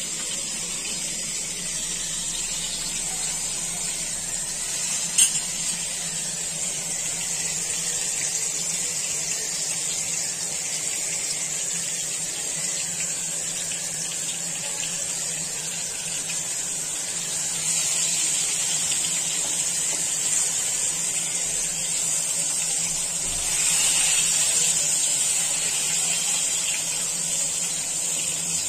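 Flour-coated Bombay duck (bombil) fish shallow-frying in hot oil in a pan: a steady sizzle that grows louder about 18 seconds in and again about 24 seconds in. There is one sharp click about five seconds in.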